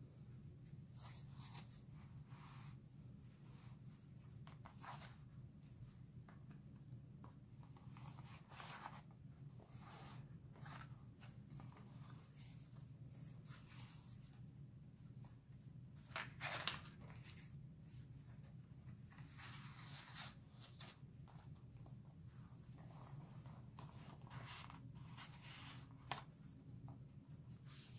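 Paper and cardstock rustling and sliding as the pages, envelope flaps and tag cards of a handmade paper journal are handled and turned. The rustles are soft and scattered over a low steady hum, with one louder rustle about sixteen seconds in.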